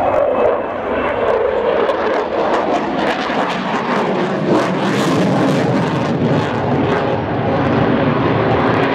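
Jet fighter's engines at high power during a display pass: a loud, steady rushing roar with crackle through it. A tone drops in pitch over the first second or two.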